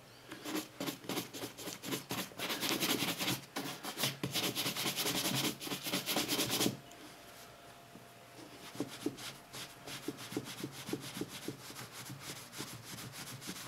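A shoe brush buffing leather conditioner off a black leather boot in rapid back-and-forth strokes. About halfway through it gives way to quieter rubbing with a polishing cloth.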